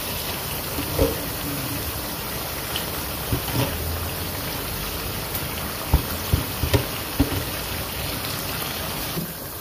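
Onions and liquid sizzling steadily in a wok on a high gas flame as raw lamb pieces are dropped in by the handful, with a few soft thuds and splashes as the meat lands.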